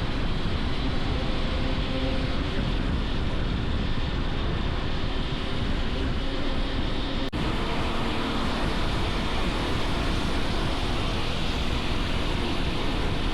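Hero XPulse 210's single-cylinder engine running at a steady pace under heavy wind rush on the microphone while riding. There is a brief dropout a little past halfway.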